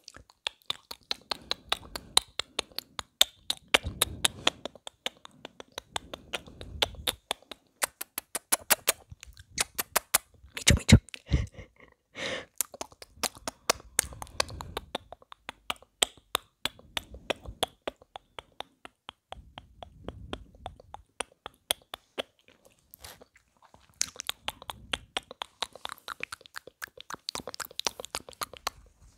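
Wet mouth clicks and tongue clicks made right against a lavalier microphone: a rapid run of sharp clicks, several a second, broken by short pauses, with one louder bump about eleven seconds in.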